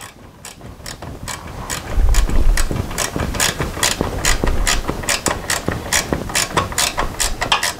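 Ratchet wrench clicking in quick repeated strokes as the bolts holding a plastic fuel tank to a metal bracket are run down. A low bump of handling comes about two seconds in.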